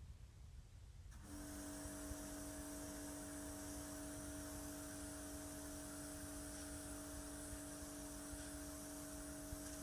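Bosch AQT 45-14X electric pressure washer kicking in about a second in, then running steadily: a constant motor-and-pump hum with the hiss of the water jet on the paving slabs.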